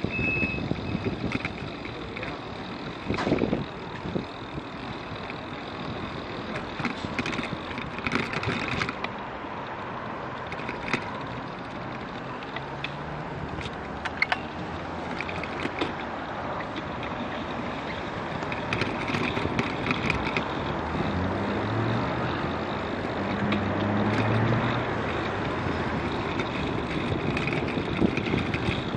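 Road traffic and wind noise picked up by a camera on a moving bicycle, with a few sharp knocks as the bike goes over bumps. Through the middle a motor vehicle's engine can be heard, its note shifting in pitch.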